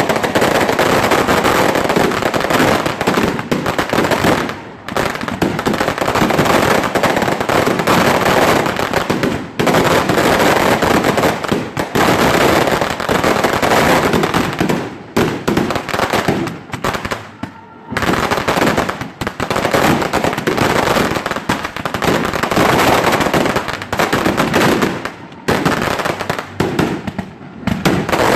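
Loud fireworks barrage: rapid, nearly continuous volleys of bangs and crackles, broken by brief lulls about 5, 10, 18 and 25 seconds in.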